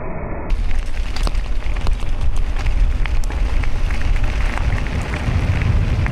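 Wind buffeting the microphone with a heavy rumble, over a scatter of crackling ticks from a bicycle's tyres rolling on a loose gravel road. A different steady rushing sound cuts off about half a second in.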